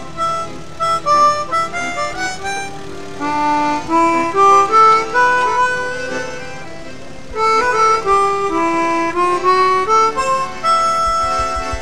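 Instrumental background music: a quick melody of short stepping notes over a steady accompaniment.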